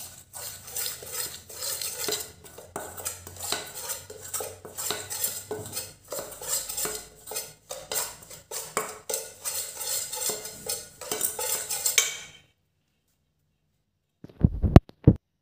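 Metal spoon scraping and clinking rapidly against a stainless steel mixing bowl as raw chicken pieces are stirred into a thick cornflour-and-spice coating. It stops abruptly; near the end come two sharp thumps.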